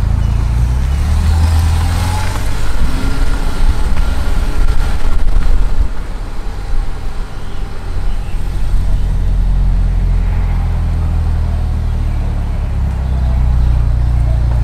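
A motor vehicle's engine running with a steady low rumble, louder and rougher for a few seconds soon after the start, then settling back to an even drone.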